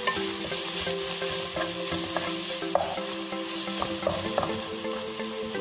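Onion masala sizzling in a non-stick frying pan while a spatula stirs and scrapes through it, with small knocks of the spatula against the pan. A few faint steady low tones hum underneath.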